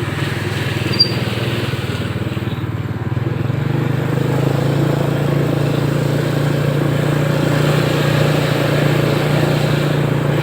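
Small motorcycle engine running steadily, growing louder about four seconds in.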